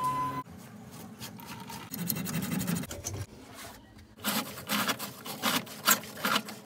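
Drain snake cable scraping and rubbing against the pipe as gloved hands feed it into a kitchen sink drain, with a quick run of sharp scrapes in the second half.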